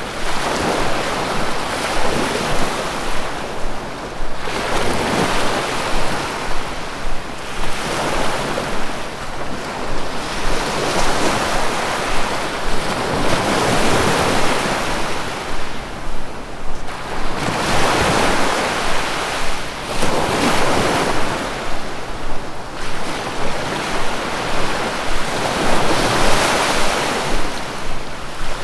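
Sea waves breaking on the shore, the surf swelling and washing back in a steady series of surges about every four to five seconds.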